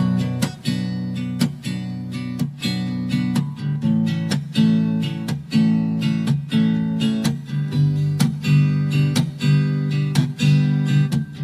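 Strummed acoustic guitar playing a steady rhythm: the instrumental opening of a song, starting suddenly out of silence.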